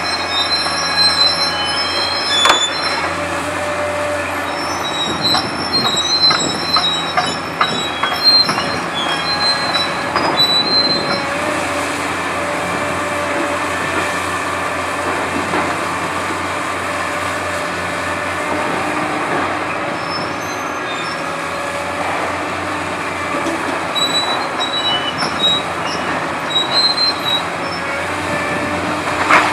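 Steel screeching and squealing as a Verachtert VT 60 scrap shear on a Hitachi ZX 870LCH-5 demolition excavator grips and cuts a steel column, with a few sharp cracks, over the steady run of the excavator's diesel engine. The squealing comes in spells, in the first ten seconds or so and again near the end.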